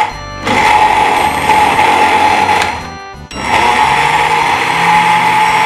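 Asanzo BF-400S 450 W blender motor running with its glass jar empty: a loud, steady high whine. It cuts out for about half a second a little under three seconds in, then starts up again as the speed buttons are pressed.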